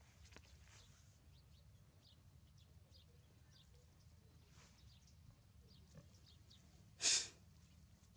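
One short, loud breathy huff from an animal about seven seconds in, over faint, scattered high chirps.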